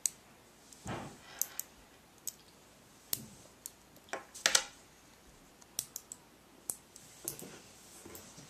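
Small neodymium magnet balls clicking sharply as they snap together and are pulled apart, in irregular single clicks and short clusters, the loudest a few quick clicks about four and a half seconds in.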